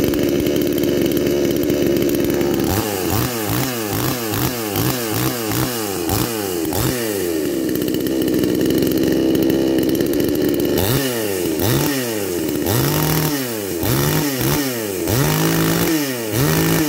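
Brand-new Garwinner chainsaw's two-stroke gas engine running on its first start. It runs steadily at first, then from about three seconds in its speed rises and falls over and over, steadies again midway, and rises and falls repeatedly once more.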